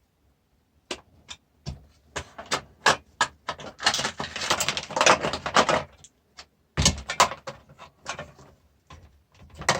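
Clicks, knocks and rattling of a food mixer's parts being handled and pried at during dismantling, with a dense stretch of rattling and scraping in the middle and a sharp knock about seven seconds in.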